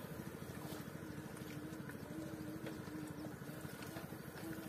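Boat engine running steadily, a faint low pulsing drone with a wavering hum.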